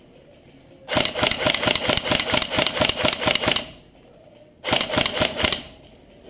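Airsoft electric rifle firing two rapid full-auto bursts: a long one of about three seconds, then a shorter one of about a second.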